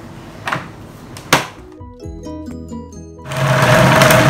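Food processor lid and feed tube knocked into place with two sharp clicks, then the Magimix food processor's motor starts about three seconds in and runs loud and steady for a second or so, blending fish paste in a quick pulse.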